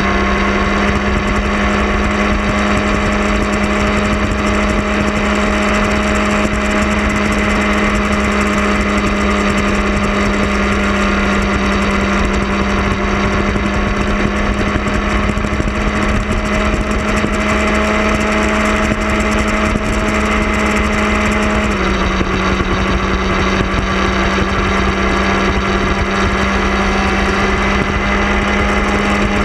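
Sport motorcycle engine running steadily at road speed over a rush of wind and road noise. Its pitch creeps up slowly, then drops in one step about three-quarters of the way through as it shifts into a higher gear.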